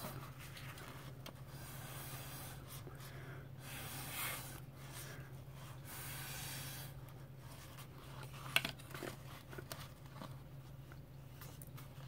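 Breath blown through a drinking straw across wet alcohol ink, in several long, soft puffs of air. A few sharp paper crackles follow about two-thirds of the way through, as the taped sheet is handled, over a faint steady hum.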